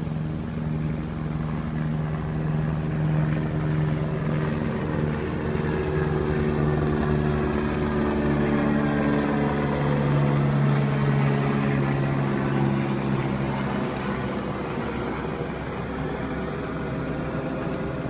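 Steady engine drone of an aircraft passing over, loudest a little past the middle and easing off after.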